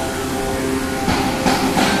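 Plastic injection moulding machine running: a steady hum with several tones, joined about a second in by louder noisy surges.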